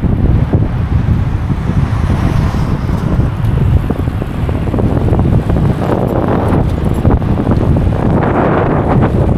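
Wind buffeting the microphone of a camera carried on a bicycle at race speed: a loud, steady low rumble of rushing air, swelling a little about six seconds in and again near the end.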